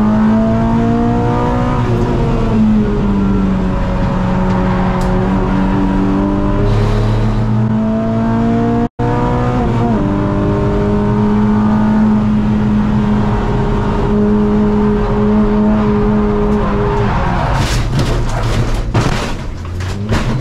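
Renault Clio 200's four-cylinder engine heard from inside the cabin at speed on track. The revs rise and dip, then hold steady on the throttle for several seconds, which the driver says was too greedy on the throttle before the apex. About three seconds before the end, the engine note breaks up into a run of knocks and rattles as the car loses the rear and goes off onto the grass.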